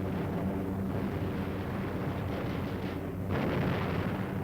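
Battle sounds of explosions and artillery fire: a continuous heavy rumble that grows louder and harsher about three seconds in.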